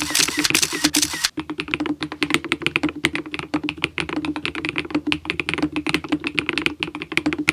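Fast, continuous typing on an Epomaker Split70 mechanical keyboard with Westeria Linear V2 linear switches and Womier Frosty Ice Cream keycaps, keystrokes coming in a dense stream of clicks. A brief hiss sits over the first second or so.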